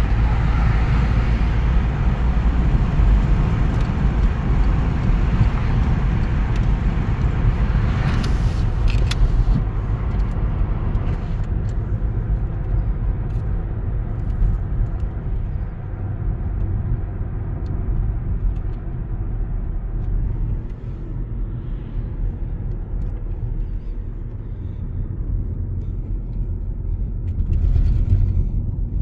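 Volkswagen Passat B7 on the move: a steady low rumble of engine and road noise, with a couple of short knocks about eight seconds in. The rumble eases off in the middle and builds again near the end.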